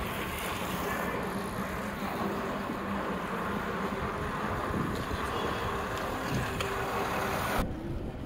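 Steady wind rush on the microphone with road noise while riding a cruiser bicycle along a paved street. The noise cuts off abruptly near the end to a quieter background.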